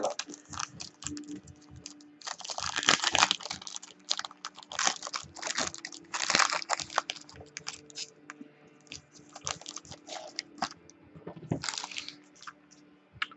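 Baseball card pack wrapper crinkling and tearing open, with the cards rustling as they are handled: an irregular run of crackles and rustles.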